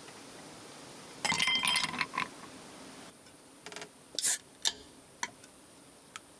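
Small hard objects clinking and knocking against each other. A loud burst of ringing clinks comes about a second in, followed by a few separate sharp clicks.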